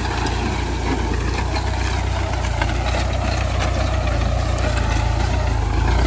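Ford farm tractor's 77-horsepower, 5,500 cc diesel engine running steadily under load as it pulls a disc plough through sugarcane stubble, with scattered crackles from the discs cutting soil and stubble.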